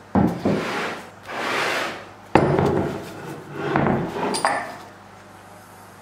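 Heavy Irwin Record cast-iron bench vise being handled and set down on a workbench top: a series of knocks and scrapes, the loudest a hard knock about two and a half seconds in, followed by rubbing as it is shifted.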